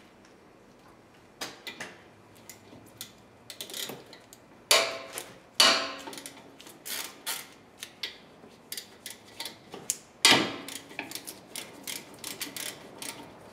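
Ratchet wrench turning out a front brake caliper bolt: irregular clicking of the pawl, with a few loud metal clacks about five, six and ten seconds in, and quicker clicking near the end as the loosened bolt is backed out.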